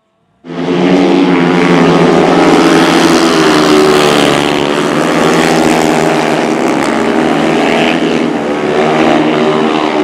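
Speedway motorcycles' single-cylinder engines running hard at high revs as they race, a loud continuous blare of overlapping engines that starts abruptly about half a second in.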